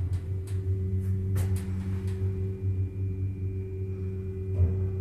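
Lift car travelling between floors: a steady low hum from the drive, with a few sharp clicks near the start and near the end and a faint high whine coming in about two seconds in.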